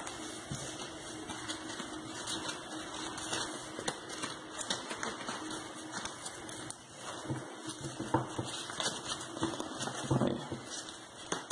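Rustling, crinkling and small scrapes of EVA foam flowers and leaves being handled while a green foam strip is wound tightly around their stems to bind them. A faint steady hum runs under the first half, and a few louder handling knocks come near the end.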